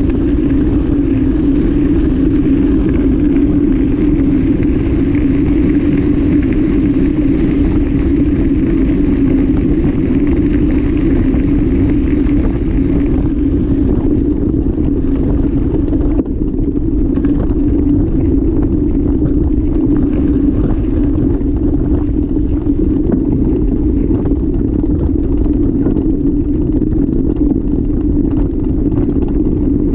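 Steady wind buffeting and tyre rumble picked up by an action camera mounted on a mountain bike riding a dirt track. A higher hiss fades out about halfway through, and scattered knocks follow as the bike jolts over the rough ground.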